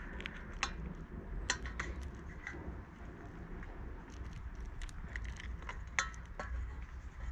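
Roasted chestnut shells cracking and crackling as they are peeled by fingers, in faint irregular clicks, with shell bits ticking onto a metal pan.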